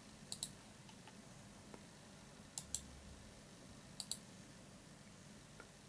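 Computer mouse buttons clicking: three quick double clicks, each a press and release, spaced about one and a half seconds apart, with a faint tick near the end.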